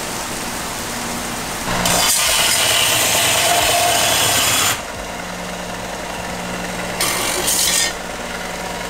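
Power tool grinding through tack welds on stainless steel exhaust tubing, so the pipe can be separated and raised closer to the chassis. The tool bites in hard for about three seconds starting a couple of seconds in, and again briefly near the end.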